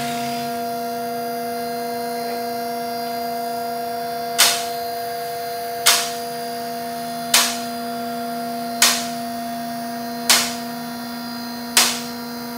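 Two-post vehicle lift's electric hydraulic pump running steadily as it raises a car. The lift's safety locks click into place six times, about every second and a half, starting about four seconds in.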